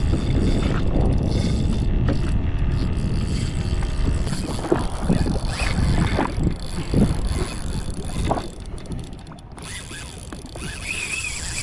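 Low wind rumble on the microphone, then from about four seconds in a run of short knocks and rattles as a fishing rod and spinning reel are handled.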